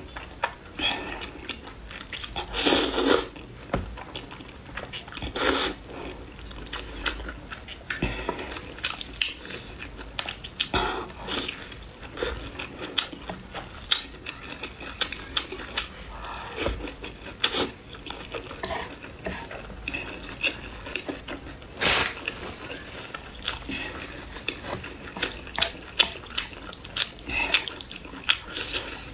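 A person slurping soupy noodles in several loud, drawn-in bursts, the longest about three seconds in, between wet chewing and smacking mouth sounds.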